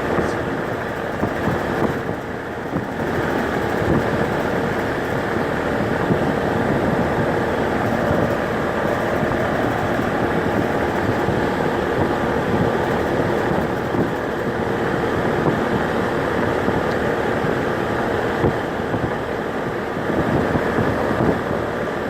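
Rheem air conditioner running steadily: an even whir with a constant hum mixed in.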